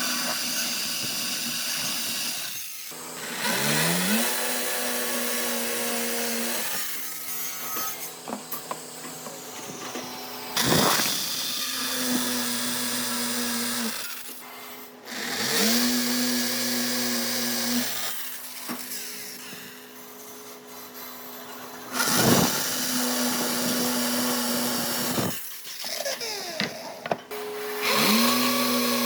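Electric power tool working wood: its motor spins up with a rising whine, runs at a steady pitch under the hiss of cutting, and breaks off suddenly, with several such runs one after another.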